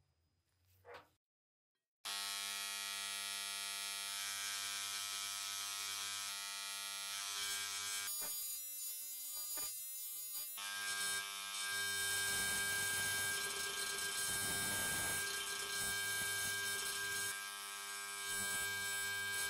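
Parkside electric engraving pen buzzing steadily, starting about two seconds in. Its vibrating tip chatters against the cast iron of a skillet's base as it cuts marks into the metal, grittier and a little louder in the second half.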